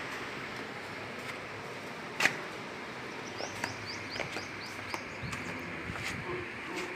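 A small bird chirping a quick run of short, high notes, with a sharp knock about two seconds in and scattered light clicks over steady background noise.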